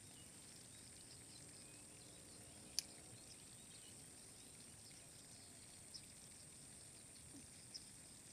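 Near silence: a faint steady high-pitched hiss of outdoor ambience with a few faint chirps, and one sharp click about three seconds in, with two softer ticks later.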